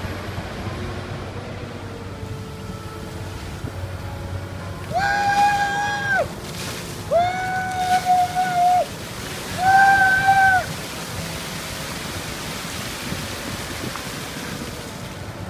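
A mass of water from an excavator bucket pouring and splashing, a steady rushing noise. Three long, high held notes sound over it about five, seven and ten seconds in.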